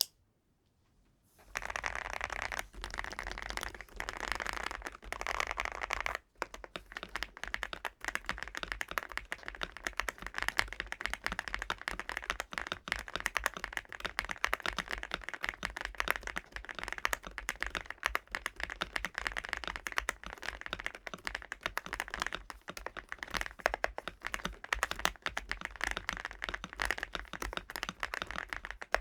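Typing on a gasket-mounted MCHOSE UT98 98% mechanical keyboard: a fast, continuous stream of key clicks that starts about a second in.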